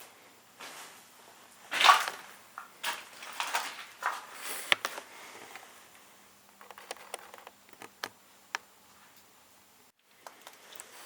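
Footsteps scuffing and crunching across a floor, an uneven run of scrapes and sharp clicks, loudest about two seconds in and sparser in the second half.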